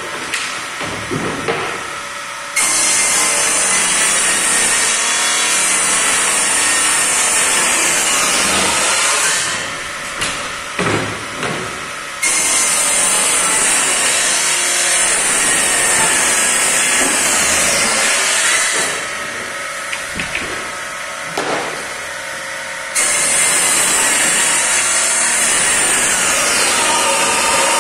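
Table saw cutting plywood panels: three cuts about ten seconds apart, each starting abruptly as the blade bites into the board and lasting six or seven seconds. Between cuts the saw runs quieter and the panels knock as they are handled.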